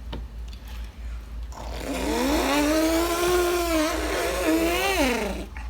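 A person imitating a revving car engine with their voice as a sound effect for a toy car: the buzzing engine noise rises in pitch about a second and a half in, holds with a wavering, rattling tone for about three seconds, then drops away.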